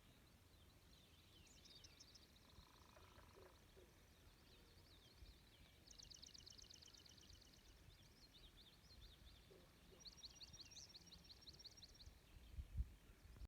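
Faint birdsong on a lake: several rapid high trills from songbirds, over a low steady rumble. A short thump near the end is the loudest sound.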